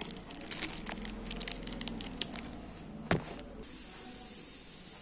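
Clear plastic packet crinkling and crackling as it is handled, with a sharp crackle about three seconds in. After that a steady hiss.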